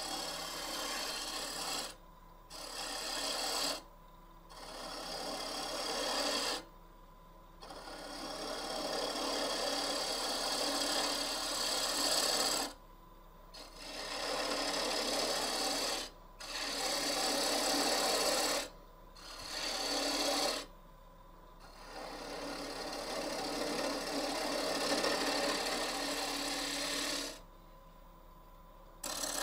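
A turning tool cutting wood on a running lathe: a rough scraping shear in a series of passes a few seconds long, broken by short pauses as the tool comes off the work, with a faint steady hum left in the pauses.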